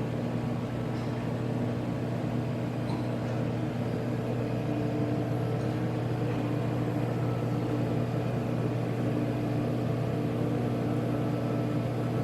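Lindberg 51524 box furnace running at temperature: a steady hum of its cooling fans with a low electrical drone and a few steady tones over it.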